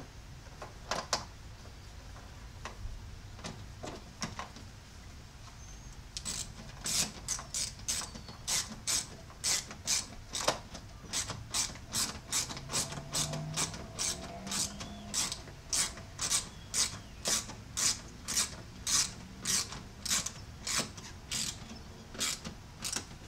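Hand ratchet clicking in short back-and-forth strokes, about two clicks a second, as the door pin switch is fastened back into the door jamb. A few scattered clicks come first, then a long steady run of them.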